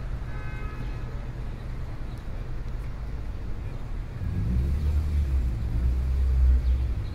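Low steady rumble, swelling louder about four seconds in and easing off near the end.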